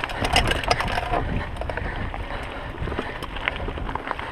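Mountain bike rolling over a trail, with wind rumbling on the microphone and the bike rattling and clicking, busiest in the first second.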